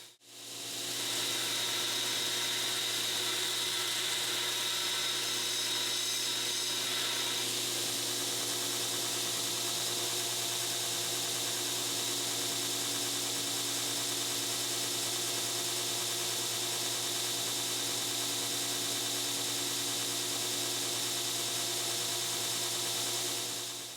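2x72 belt grinder running steadily with its motor hum, a steel blade being ground against a coarse 36-grit belt to shape the bevels.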